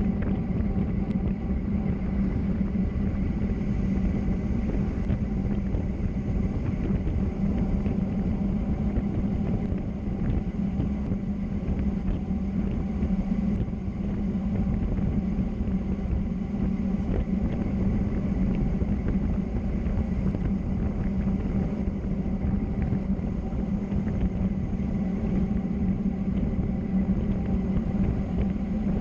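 Steady low rumble of a moving vehicle on the road, with a constant hum and a few faint steady whines above it, unchanging throughout.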